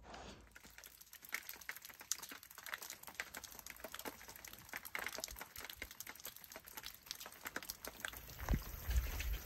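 Light rain pattering and dripping: a dense stream of small irregular ticks. Near the end, wind buffets the microphone with a low rumble.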